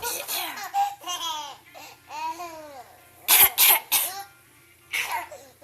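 A person coughing in short harsh bursts, loudest in a run of three a little over three seconds in, with one more near the end. Between the coughs a baby laughs in high-pitched peals.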